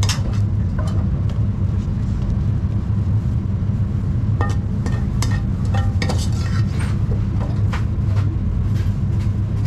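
Steady low mechanical hum with scattered metallic clinks and scrapes of a serving spoon against pan and plate as kappa biriyani is dished up.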